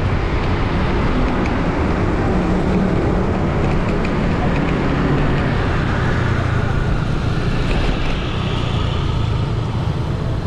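Steady wind and road rush on a helmet or handlebar camera's microphone while riding, with the low hum of a motor vehicle engine running alongside. Another vehicle's note rises and falls about two-thirds of the way through.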